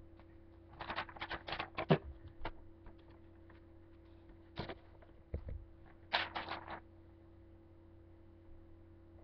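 Ballpoint pen scratching on lined notebook paper in quick short strokes, coming in three bursts over a low steady hum.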